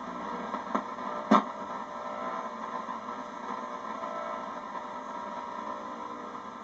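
Ten Tec Paragon receiver putting out steady shortwave band noise and static through its speaker, with no station in. A faint click comes under a second in, then a sharper, louder click.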